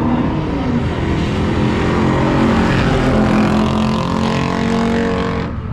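Turbocharged Barra straight-six in a VL Commodore running hard under load, its pitch falling in the first second and then holding steady. The sound changes abruptly near the end.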